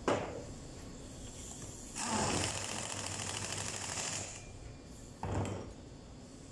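Pneumatic impact wrench hammering on the bolts of a forklift hydraulic pump for about two seconds, a steady rapid rattle. A sharp knock just at the start and a short clunk about a second after the wrench stops, as the tool is handled on the wooden bench.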